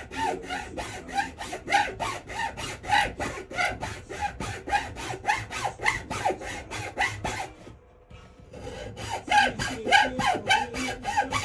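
A hand tool rasping back and forth on wood in quick, even strokes, about three or four a second, with a brief pause about eight seconds in.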